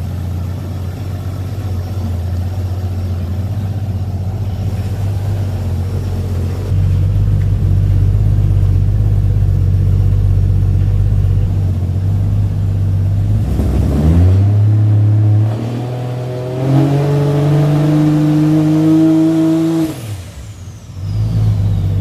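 Toyota 2JZ-GTE turbocharged inline-six idling steadily through its exhaust. It is then revved up and held at two steady, rising engine speeds, and drops back to idle with a faint falling whistle near the end.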